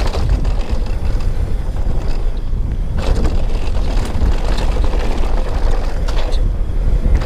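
Wind buffeting the microphone and the rumble of riding at speed, with a few sharp clacks scattered through.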